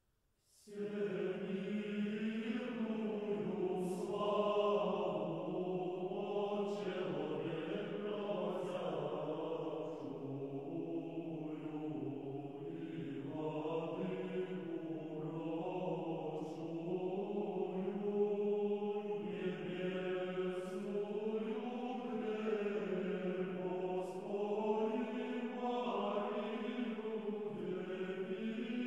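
Background music of slow vocal chant: voices hold long notes over a steady low line, starting about a second in.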